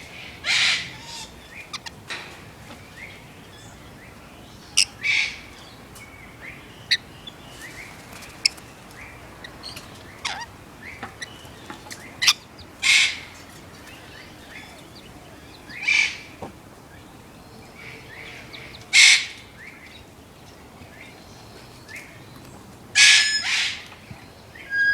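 Rainbow lorikeets screeching: short, harsh, high calls every few seconds, with scattered sharp chirps between them.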